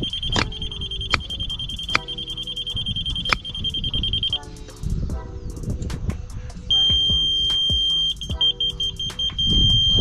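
Spectra Precision HL700 laser receiver on a level rod sounding a steady high tone, which stops about four seconds in. Near the seven-second mark it sounds again as a solid tone, breaks into rapid beeps for under a second, then goes solid again: the receiver signalling on grade with the solid tone and just off grade with the fast beeps as the grade stake height is set.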